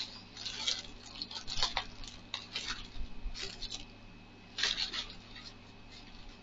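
Plastic packaging crinkling and rustling in a handful of short, irregular bursts as a package is handled and torn open by hand.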